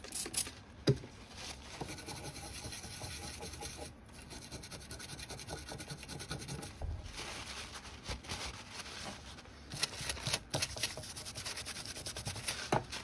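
Small bristle brush scrubbing back and forth over the freshly soldered joints on the underside of a circuit board, a quick run of rasping strokes, then the brush rubbed on a paper towel near the end.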